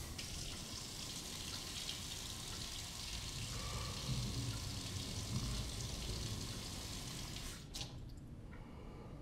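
Kitchen tap running steadily into the sink, then turned off with a click near the end.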